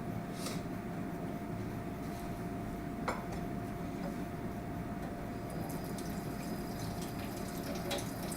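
Creamed corn sauce with shredded chicken heating and being stirred in a pan: wet stirring sounds with a few light clicks of the utensil against the pan, over a steady low hum.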